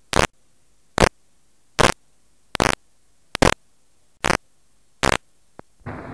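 Short, loud bursts of noise repeating evenly about once every 0.8 seconds over a low hiss: a recurring defect on the soundtrack of an old film transfer, heard over the blank leader. Just before the end, brass dance-band music fades in.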